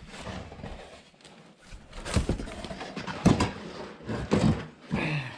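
Handling noise: a few sharp knocks roughly a second apart, with quieter shuffling and rustling between them.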